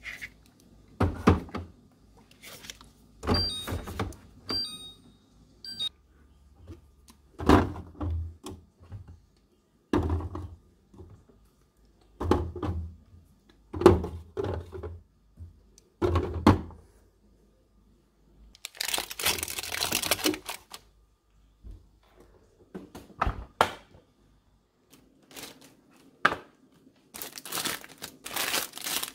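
Groceries being put away: small plastic bottles knock one after another as they are set onto refrigerator shelves, about a dozen separate knocks with gaps between them. Near the end comes a stretch of plastic wrapper crinkling as packaged pastries are handled.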